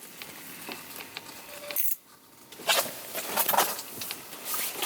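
Ice-fishing reel being cranked as a hooked perch is brought up, then a run of sharp clinks and clatter, light metallic or icy, for about a second partway through and again near the end.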